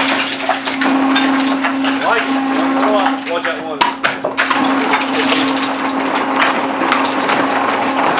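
Electric Badger mining machine running with a steady hum while its arm works against the rock, with rock knocking and clattering and rising and falling squeals in the first few seconds.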